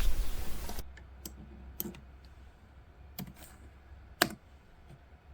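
A few separate clicks of a computer keyboard, sparse and irregular, the loudest about four seconds in.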